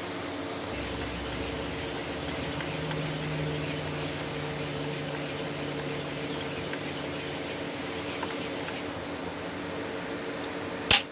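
Hand sanding: the end of a piece of tubing rubbed on sandpaper to make it flat, a steady scratchy hiss for about eight seconds. A sharp click comes near the end.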